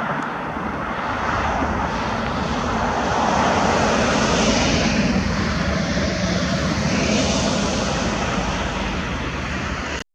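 Steady rushing drone, engine-like, that grows louder a few seconds in and cuts off suddenly near the end.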